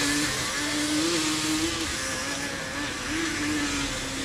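Snow-tracked quad ATV's engine running under throttle as it drives across snow, its note rising and falling with the revs, over a steady hiss.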